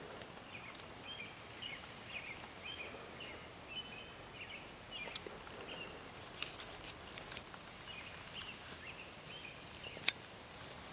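Faint short, high chirping calls repeated on and off over a steady background hiss, with a few sharp clicks midway and one louder click near the end.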